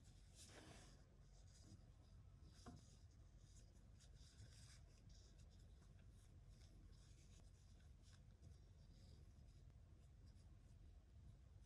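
Faint, irregular scratchy rustling of a metal crochet hook drawing yarn through stitches, with a single small click about two and a half seconds in, over a low steady hum.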